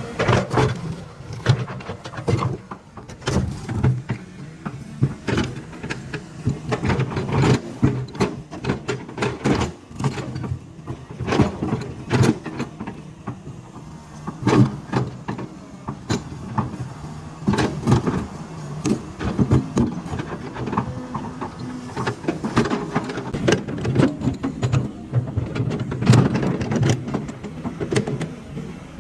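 Caterpillar 320 hydraulic excavator's diesel engine running steadily, with frequent irregular knocks and clatter as it works.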